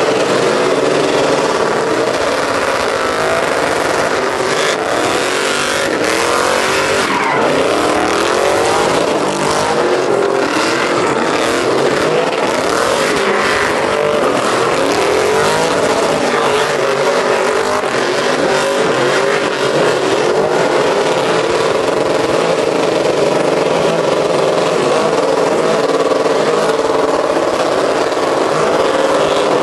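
Pickup truck engines held at high revs during burnout donuts, the pitch wavering up and down as the driver works the throttle, with the rear tires spinning and squealing on the pavement.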